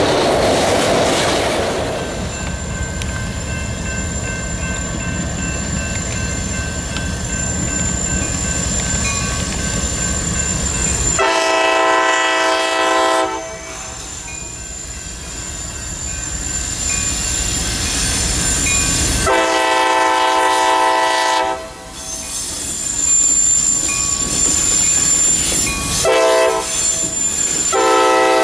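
Train rumble with a steady high wheel squeal, then a locomotive air horn sounding the grade-crossing signal: two long blasts, a short one, and a final long blast that is still sounding at the end. The horn is a chord of several notes.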